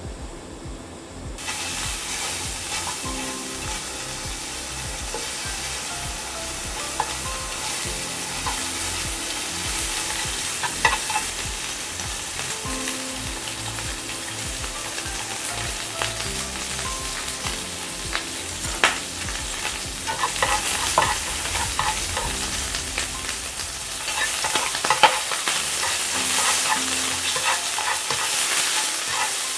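Food frying in oil in a hot frying pan: a steady sizzle that starts abruptly about a second and a half in, with scattered sharp clicks of wooden chopsticks tapping and scraping the pan as sliced meat is stirred.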